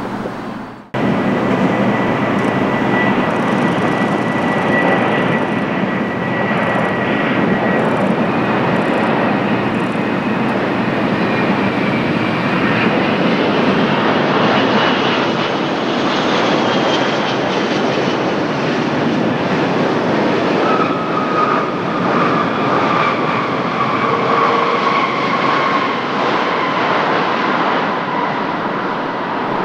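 Airbus A380-861's four Engine Alliance GP7200 turbofans as the airliner lands and rolls out on the runway: a loud, steady jet roar. Over the last ten seconds or so, an engine whine slides slowly down in pitch.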